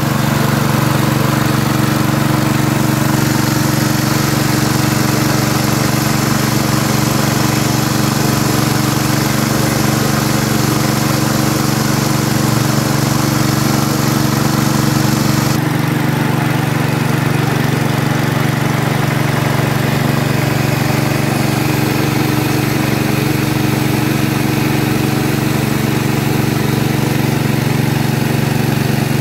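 Small engine-driven rice milling machine running steadily under load, a constant engine drone with a hiss of milled rice pouring out. The high hiss lessens abruptly about halfway through.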